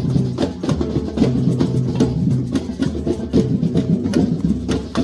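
Background music with a busy percussive beat of wood-block and drum hits over a steady bass line.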